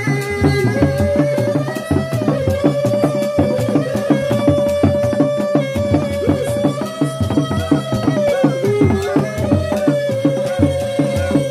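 Sundanese reak ensemble playing: dogdog frame drums beat a fast, steady interlocking rhythm under a melody line held on long notes that steps between pitches.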